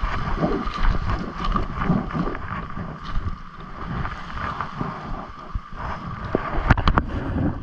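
Wind buffeting the microphone as a steady rushing rumble, with a few sharp clicks or knocks about seven seconds in.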